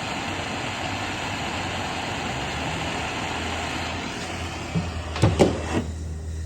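A steady rushing hiss with a low hum underneath, cut off abruptly near the end after a few sharp knocks.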